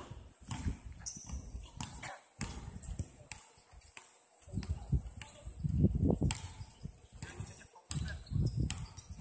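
Sound of a football practice on an artificial pitch: scattered sharp knocks of a ball being kicked, over wind buffeting the microphone in gusts, with faint distant voices of players.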